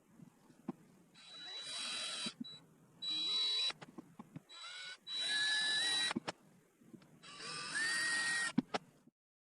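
A small electric power tool, such as a hobby drill, running in four short bursts with pauses between. Each burst has a steady high whine and a second tone that steps up in pitch. Light clicks of handling come in between.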